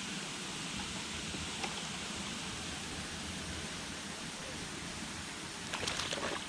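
Steady rush of flowing river water, with a few light clicks near the end.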